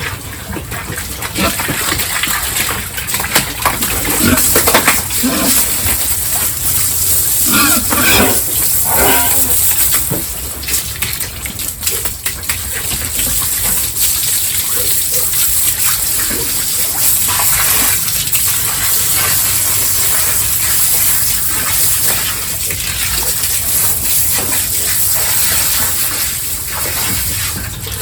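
Water gushing steadily while pigs grunt and squeal, the calls mostly in the first ten seconds.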